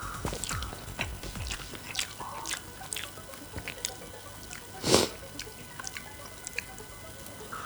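Eating instant noodles up close: scattered small clicks and wet mouth sounds, with one louder burst about five seconds in.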